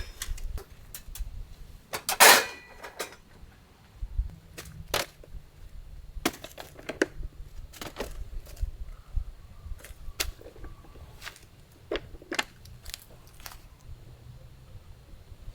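Irregular clicks and knocks of cooking gear and utensils being handled, with one louder knock about two seconds in that rings briefly, like metal struck.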